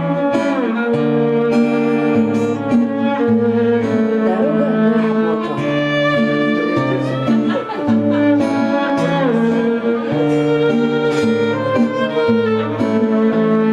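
Violin playing a melody with sliding notes over acoustic guitar accompaniment, an instrumental break in a song.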